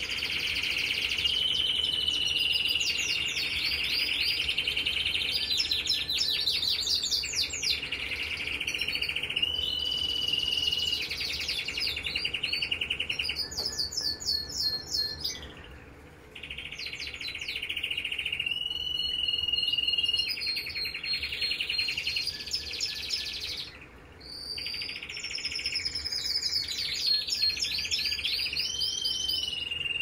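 Mosaic canary singing a long, near-continuous song of fast trills and held rolling notes, broken by two short pauses about halfway through and again about three-quarters of the way through.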